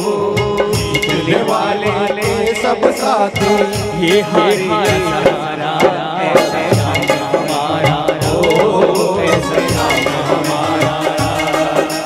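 Live Hindu devotional bhajan music over a PA: a hand drum keeps a steady beat under a wavering melody line, with sharp percussive strokes, likely clapping.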